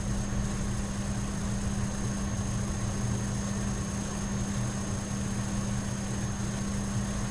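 Steady low hum with a faint hiss, the recording's background noise; no other sound.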